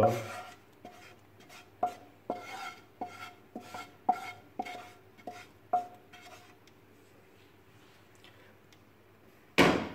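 Metal spoon scraping and tapping against a frying pan while the onion and paprika are scraped out into the bean pot: a string of short ringing clicks over the first six seconds, then a loud clatter just before the end.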